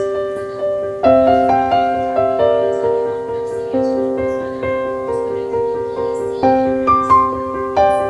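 Background piano music: slow, gentle chords with single notes struck over them, each note fading after it is struck.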